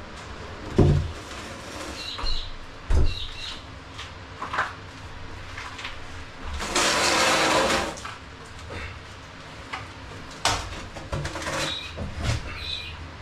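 A heavy laminated timber beam being manhandled into place: knocks and low thumps as it bumps against the frame and floor, the two loudest about one and three seconds in, and a scrape lasting about a second around seven seconds in.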